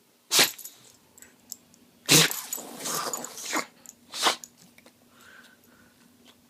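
Bulldog sneezing: a sharp sneeze about half a second in, a louder one around two seconds in that runs on for about a second and a half of noisy breath, and a third just past four seconds.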